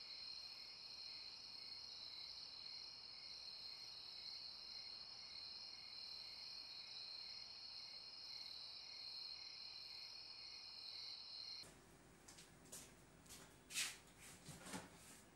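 Faint, steady chirring of crickets in a night chorus. About three-quarters of the way in it cuts off, and a few clicks and knocks follow, one louder than the rest.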